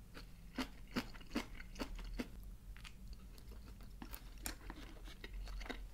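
Close-miked chewing of a mouthful of sushi: soft, faint mouth clicks and small crunches, several a second at first and more scattered later.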